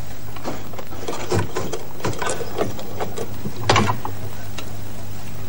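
Hand crank of an old magneto desk telephone being turned to ring the exchange: a run of irregular clicking and rattling, with a louder clatter just under four seconds in, over a steady low hum.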